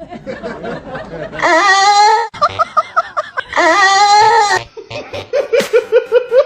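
A person's voice making two long, wavering, drawn-out vocal noises, with bursts of quick rhythmic laughter between them and near the end.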